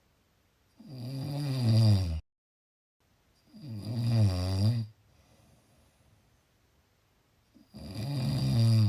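Snoring: three long snores a few seconds apart, each lasting about a second and a half and growing louder as it goes.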